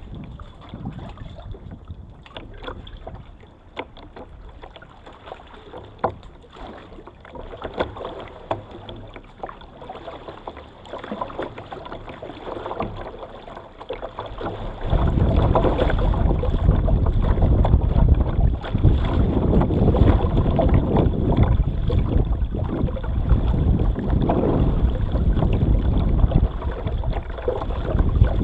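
Water splashing and lapping against a kayak's hull close to the microphone, with many short splashes. About halfway in, a loud low rumble of wind buffeting the microphone comes in suddenly and stays over the water sounds.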